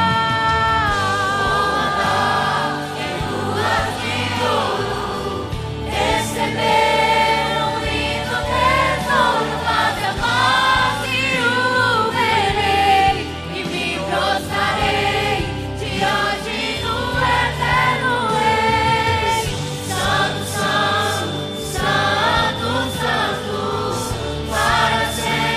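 Mixed youth choir of young men and women singing a Christian worship song together through handheld microphones, with musical accompaniment.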